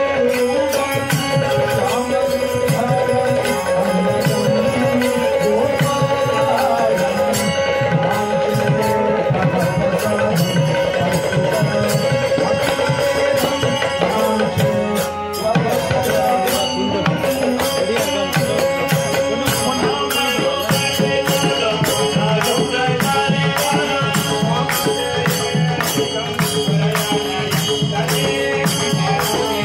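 Male voices singing a Sampradaya bhajan devotional song to a harmonium's held drone, with small cymbals striking a steady beat.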